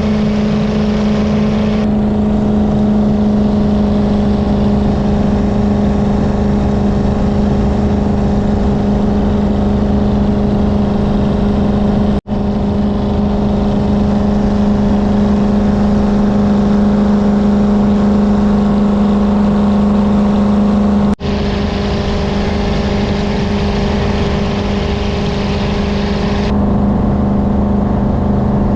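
Jet boat under way at a steady speed: a constant engine drone with the rushing hiss of water and wind over it, broken twice by an instant's dropout.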